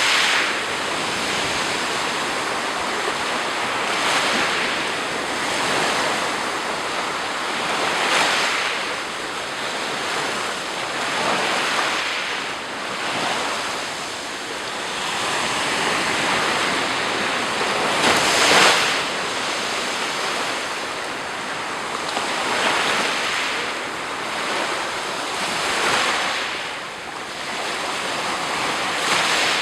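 Black Sea surf: waves breaking and washing up on the shore, one every few seconds, the loudest about two-thirds of the way through, with a constant hiss of foam between them and some wind on the microphone.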